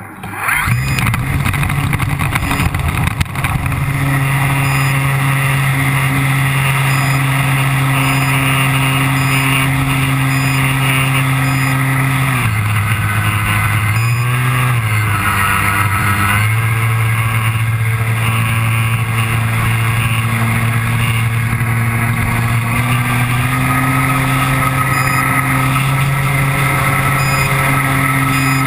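RC model airplane's motor and propeller spinning up at launch, then running steadily in flight, heard close from a camera on the plane with rushing air. The pitch drops and wavers for a few seconds around the middle, then picks back up and rises a little later on.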